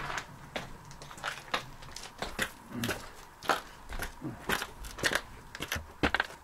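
Footsteps crunching on a rough path: irregular sharp crunches, two or three a second.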